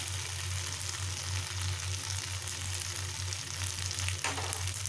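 Macaroni and vegetables sizzling in hot oil in a kadai, a steady frying hiss, with a single light tap about four seconds in.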